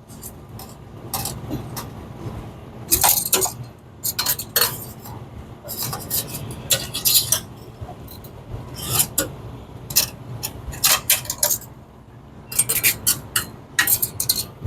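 Irregular clicks, clinks and scrapes of small metal parts being handled: wire spade connectors pulled off and pushed onto the terminals of a TurboChef oven's hi-limit switch as it is rewired.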